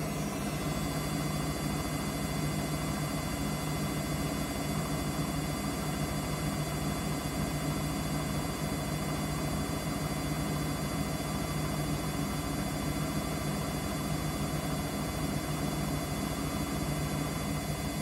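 Samsung washing machine running on a heavy 60 °C wash, a steady low hum from its motor that does not change or pause.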